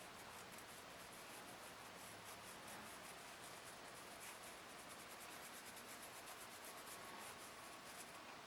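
Faint, quick rubbing strokes, several a second, that stop about eight seconds in.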